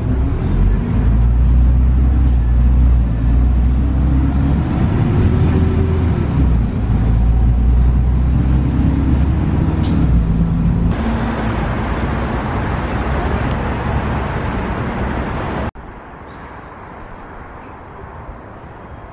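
Riding inside a city bus: the engine and road noise rumble loudly, the engine's pitch rising and falling as the bus pulls and slows. About eleven seconds in it changes abruptly to a hissier road-noise stretch, then near the end cuts to a much quieter steady outdoor background.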